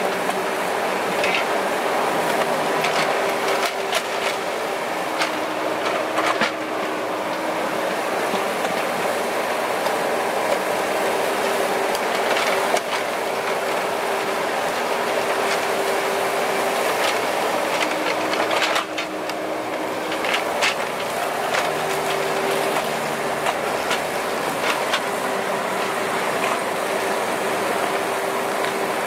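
Kubota KX91-3 mini excavator's diesel engine running steadily as the machine works, with scattered knocks and clanks throughout.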